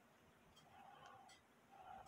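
Near silence: faint room tone with a couple of faint small clicks from a screwdriver working on a brass clock movement.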